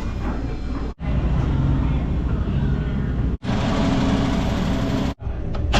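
Vehicle engine and road noise, a steady low rumble heard in several short spliced clips, each cut off abruptly, about one, three and a half, and five seconds in.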